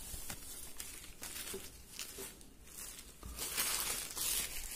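Rustling and crinkling of a new shirt's packing material and cotton fabric as the folded shirt is opened out. It comes in a series of short rustles, louder in the last second and a half.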